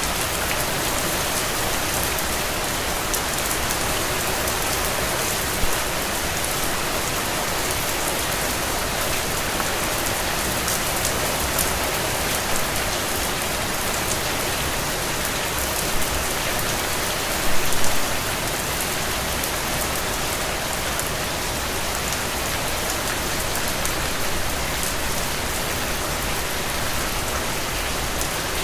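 Steady rainfall: a dense, even hiss with individual drops ticking through it. A brief louder spatter comes about two-thirds of the way through.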